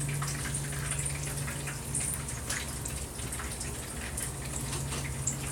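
Hot cooking oil sizzling and crackling in a frying pan, with many small irregular pops, over a steady low hum.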